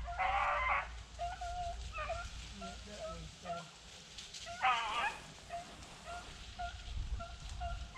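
Beagles running a rabbit, giving short, scattered barks from a distance, with two louder, longer bays: one at the start and one about five seconds in.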